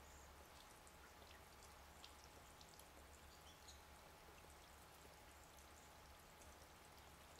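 Near silence: faint outdoor background with a low steady hum and scattered faint, very short high-pitched ticks.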